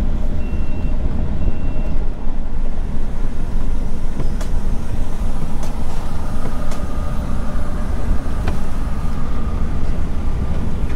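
RV driving slowly, heard from inside the cab: a steady low rumble of engine and road noise. A few faint high beeps sound in the first two seconds, and there are occasional sharp clicks.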